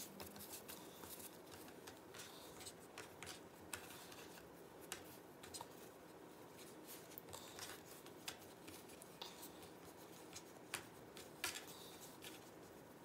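Faint handling sounds from hands twisting and shaping raisin bread dough on a wooden cutting board: scattered soft ticks and light rubbing.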